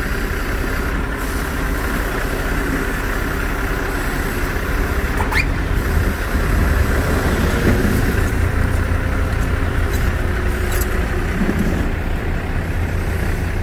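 Heavy vehicle engine running steadily with a low rumble, growing a little louder about six seconds in. A brief rising squeal sounds about five seconds in.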